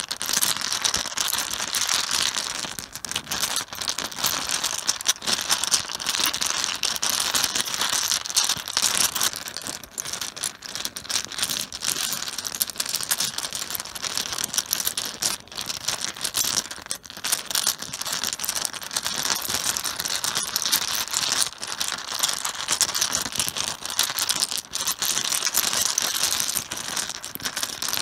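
Mahjong tiles clattering and knocking against one another on a cloth-covered surface, a dense, unbroken run of small clicks like tiles being mixed by hand.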